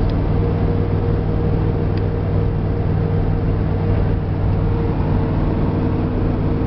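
Chevrolet Suburban 4x4 cruising at a steady speed: a steady low engine drone with road noise and a faint steady tone above it, without change.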